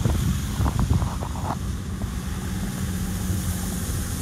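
Vehicle driving over a slushy, partly flooded road: engine rumble with tyres hissing and splashing through slush and water, and wind on the microphone.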